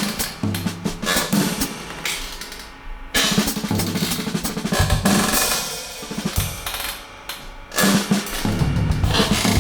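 Drum-heavy music with a full drum kit, playing a fast run of hits. It fades twice, just before three seconds in and again around seven seconds in, and kicks back in each time.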